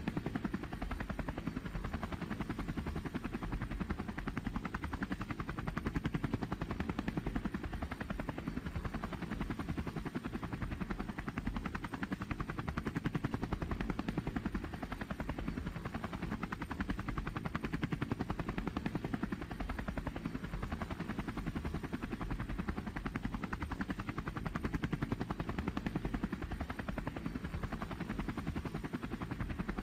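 Drone's propellers and motors whirring steadily with a fast, even pulsing.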